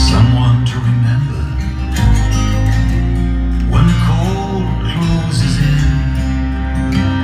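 Music with plucked guitar over deep, sustained bass notes, played back through a TV's home-theatre speaker system.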